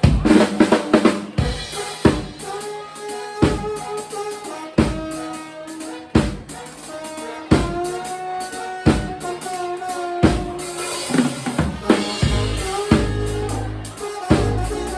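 Live band playing, driven by a drum kit with kick and snare hits on a steady beat, under held notes from pitched instruments. A quick run of drum hits opens it.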